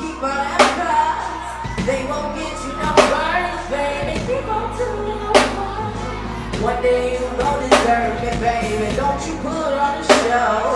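Live R&B song: a woman singing into a microphone over music with a deep, steady bass and a heavy drum hit about every two and a half seconds.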